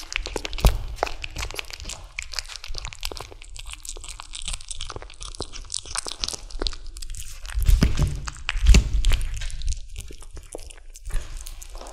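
A kitten chewing and gnawing raw chicken, with rapid wet crunching and clicking bites, and two louder low thumps around eight and nine seconds in.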